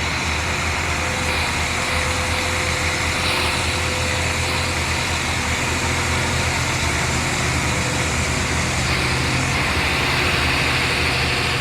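Diesel multiple-unit train's engine running with a steady low hum.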